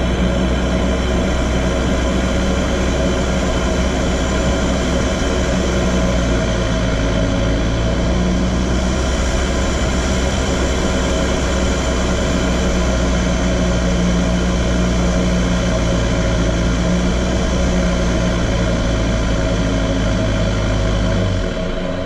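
4WD driving along a gravel track: a steady engine drone with road noise, dropping in pitch shortly before the end as the vehicle slows.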